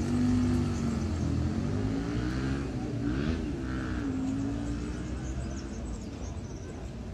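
A motor vehicle engine running close by, its pitch dipping and rising a few times and fading slightly toward the end.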